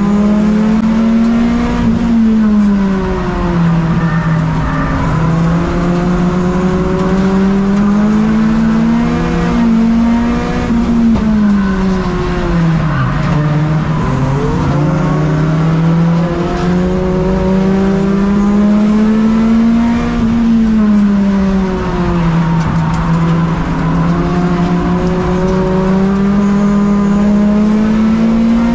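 Tuner race car's engine at racing speed, heard from inside the cockpit: the revs climb and fall in long swells about every ten seconds, with a deeper drop a little before halfway.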